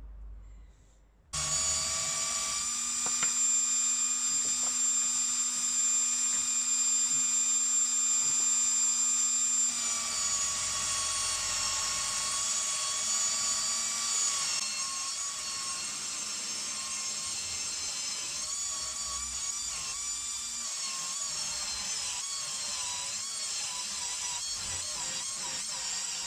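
Power tool spinning a polishing pad while a steel open-end wrench is held against it to polish it: a steady high-pitched motor whine that starts suddenly just over a second in. Its pitch drops a little about ten seconds in and wavers in the second half.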